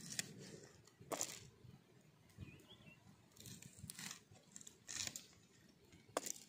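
Green chillies being sliced against a curved iron sickle-style blade: faint, crisp snaps, roughly one a second, as each piece is cut off.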